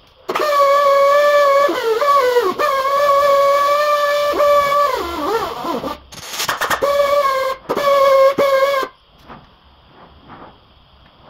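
Pneumatic die grinder running with a high steady whine, its pitch sagging several times as it is pressed into the work. It cuts out briefly about six seconds in with a short noisy burst, runs twice more, then stops near nine seconds.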